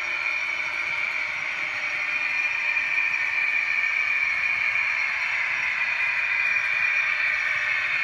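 H0-scale model train running along the track: a steady whirring of the locomotive's small electric motor and the wheels on the rails, growing a little louder as it comes closer.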